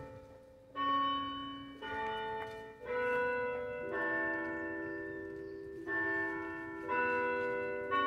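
Church tower bells ringing a slow sequence of different notes, about one strike a second, each note ringing on and fading before the next; one note in the middle is held for about two seconds.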